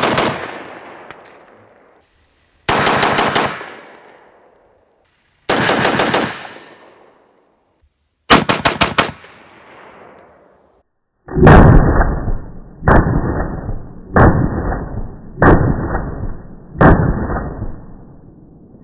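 AR-15 rifle with an Armalite M-15 tunable muzzle brake firing 5.56 ammunition: four quick strings of shots, each dying away in an echo. Then come five single shots a little over a second apart, sounding duller and muffled.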